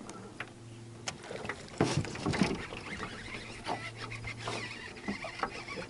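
Electric trolling motor humming, cutting off about a second in and running again briefly later on, with a louder burst of knocks and rustling about two seconds in.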